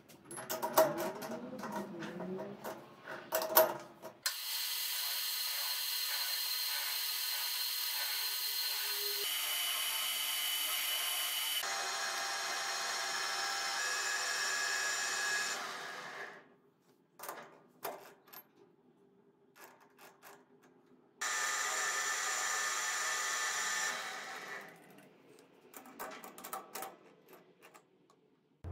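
Metal lathe turning a small steel part: a steady whirring hiss with a thin high ring as the chuck spins and the cutting tool works, in two runs of about twelve seconds and three seconds. Before, between and after the runs, sharp metallic clicks and knocks come from the chuck key and from metal parts being handled.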